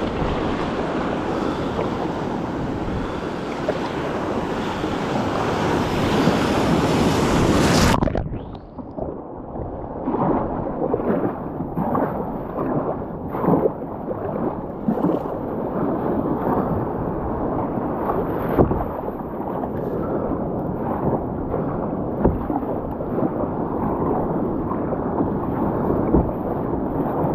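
Kayak paddled through choppy ocean water: waves washing against the hull and the paddle blades splashing at a steady stroke rhythm, with wind buffeting the microphone. For the first eight seconds a loud, even rushing hiss covers everything, then it cuts off suddenly, leaving the lower wash of the water and the separate paddle splashes.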